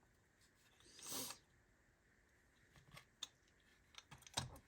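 Faint small clicks of a Ford Model T ignition switch's metal parts being handled, with a brief soft rustle about a second in; otherwise near silence.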